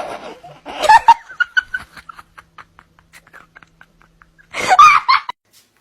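A person laughing hard in a run of short pulses, with a loud burst of laughter near the end before it stops.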